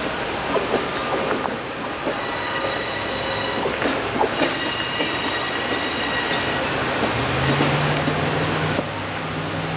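Passenger coaches and a caboose rolling away over the track: wheels clicking over rail joints, with a high wheel squeal in the middle. A low steady hum joins near the end.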